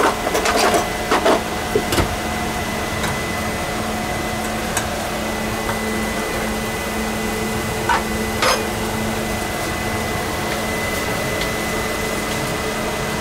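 Ventilation fans in a small RV kitchen, a roof vent fan turned up and a second fan switched on, running with a steady whir and hum. A few sharp clinks of utensils and kitchen items, clustered in the first two seconds and twice about eight seconds in.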